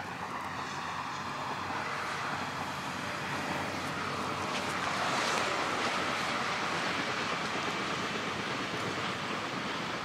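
Steady rushing noise with no distinct events, swelling a little around five seconds in.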